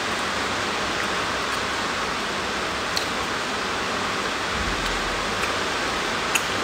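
Steady, even hiss of background noise, with a few faint small clicks about three seconds in and near the end.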